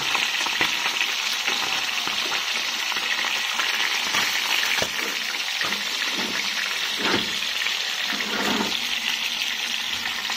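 Pieces of sea fish frying in hot oil in a pan, with a steady sizzle and a few short knocks later on.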